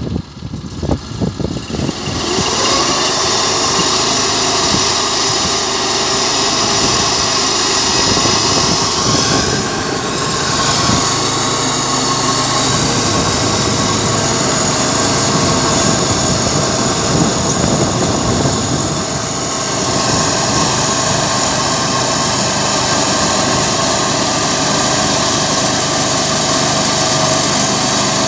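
Mahoe sawmill's engine revving up from idle, then running steadily under load as its slabbing attachment cuts a slab along a log.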